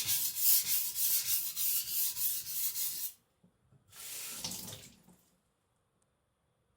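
Chinese cleaver blade rubbed in quick back-and-forth strokes across a wet whetstone, about three strokes a second, while the burr is being flipped. The strokes stop about three seconds in, and a second later there is a brief splash of water.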